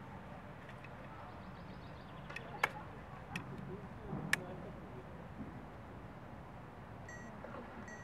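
Outdoor riverside ambience: a steady low rumble, several sharp clicks around the middle, and short high chirps near the end.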